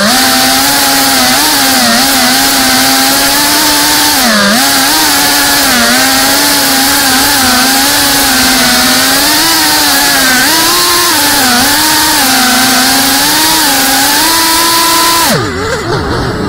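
FPV racing quadcopter's motors and propellers whining loudly, the pitch wavering up and down with the throttle. About 15 seconds in the throttle is cut and the whine falls away sharply, then climbs back as power returns.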